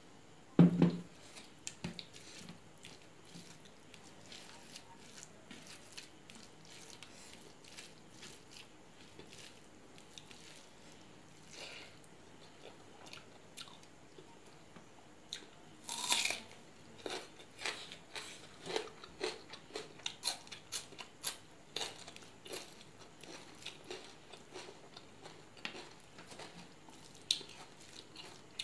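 Close-up eating sounds: crunching and chewing mouthfuls of rice with fried bitter gourd and dried fish, with fingers working the rice on a steel plate. A loud thump comes under a second in, and a louder burst of crunching about halfway through is followed by many quick bites and clicks.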